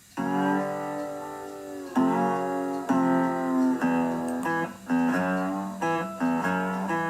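Music: a guitar playing a run of chords that begins just after the start and changes chord about once a second.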